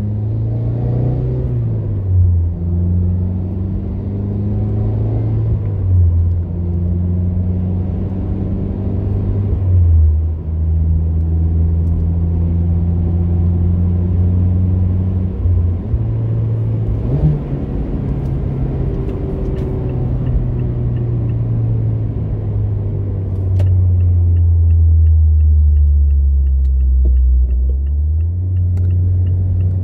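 Mazda MX-5 Miata RF's 2.0-litre four-cylinder through a RacingBeat Race axleback exhaust with a 2.5" Vibrant resonator, heard from inside the cabin while driving: a low exhaust note that drops and climbs again several times with the gear changes. Near the end the note settles lower and steadier, under a light ticking about three times a second.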